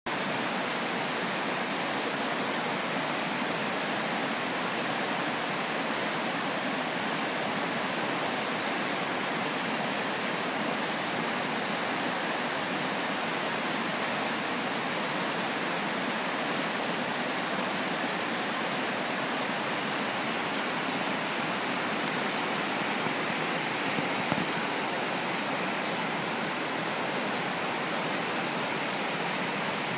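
Mountain torrent rushing and splashing over boulders and rapids, a steady, unbroken water noise.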